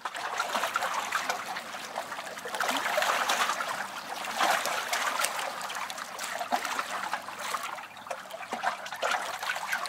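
River water splashing and trickling close by, with many small quick splashes over a steady rush.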